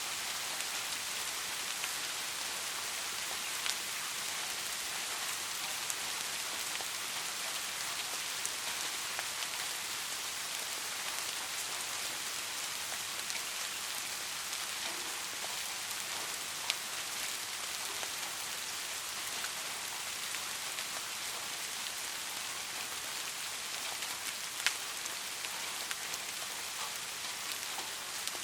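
Steady soft rain falling, an even hiss of drops with now and then the sharper tick of a single drop.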